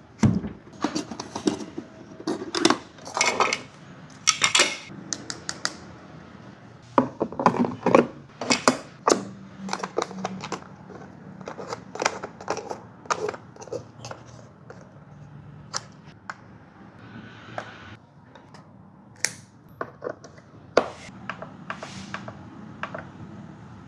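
Irregular clicking and clattering of small hard objects being handled, with many sharp clicks, densest in the first half, over a faint steady low hum.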